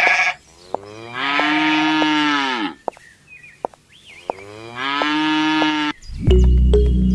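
A cow mooing twice, each moo a long call that rises and then falls in pitch. Music comes in near the end.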